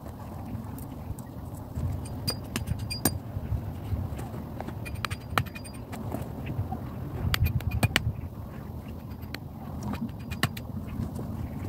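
A hatchet striking a wooden stake: sharp knocks in short clusters, with a quick run of several about two-thirds of the way through and two more near the end. A low wind rumble on the microphone runs underneath.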